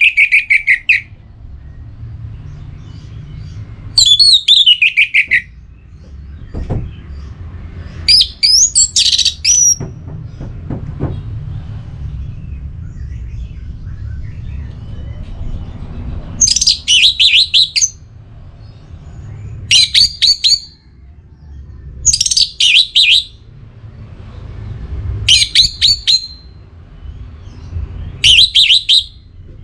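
Orange-headed thrush singing short, rapid phrases of clear high notes, a new phrase every two to three seconds, some sliding down in pitch. A steady low rumble runs underneath.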